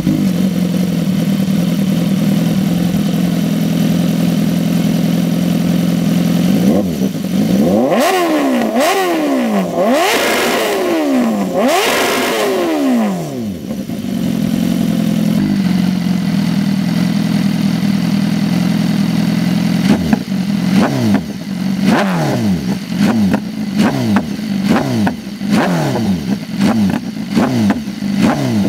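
2015 BMW S1000RR's inline-four engine through an SC-Project slip-on exhaust, revved while standing. It idles steadily, is revved sharply a handful of times about eight seconds in, settles back to idle, and from about twenty seconds in is blipped quickly over and over.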